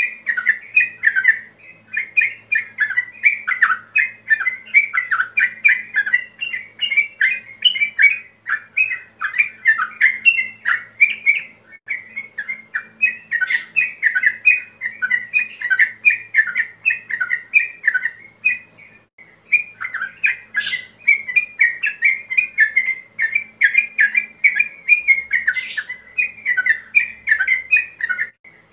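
Male yellow-vented bulbul (trucukan) singing a rapid, almost continuous run of short chattering notes, the 'ropel' song of a male calling to rivals, with one brief pause a little past halfway.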